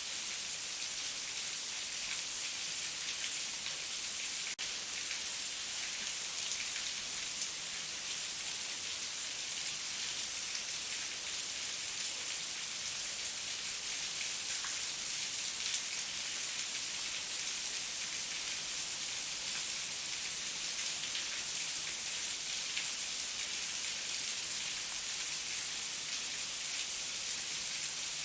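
Heavy rain falling steadily: a dense, even hiss of drops with scattered individual drop ticks.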